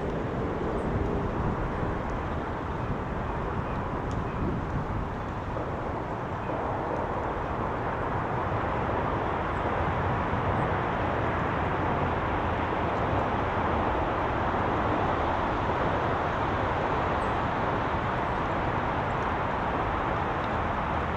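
Steady outdoor background noise: an even rumbling hiss that swells a little partway through, with a few faint, short high chirps.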